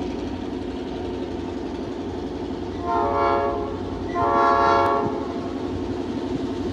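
Amtrak GE Genesis P42DC diesel locomotive sounding its air horn as the train approaches: a short blast, then a longer, louder one, over the steady rumble of the oncoming train.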